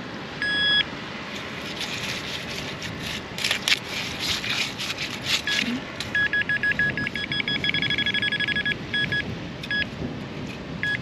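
Metal-detecting pinpointer beeping as it homes in on a buried target, a lead fishing weight. A single short beep comes first. A run of clicks and scrapes from digging follows, then a fast string of beeps that nearly merges into one steady tone as the probe closes on the target.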